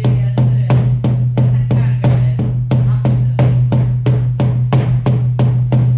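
Shamanic frame drum beaten in a steady, even pulse of about three strokes a second, with a deep, sustained boom under the beats.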